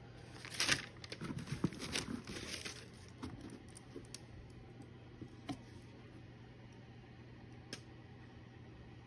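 Kraft wrapping paper rustling and crinkling as it is pulled back inside a cardboard boot box: a run of crackles for about three seconds, then a few scattered light rustles and taps.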